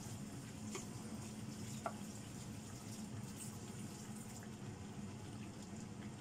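Chicken and potato curry simmering in a frying pan: a faint, steady bubbling with scattered small pops, and one sharper tick about two seconds in. A steady low hum runs underneath.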